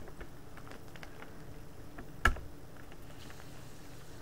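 Handling noise from opening a sealed card tin: scattered light clicks and taps, with one sharp knock a little over two seconds in.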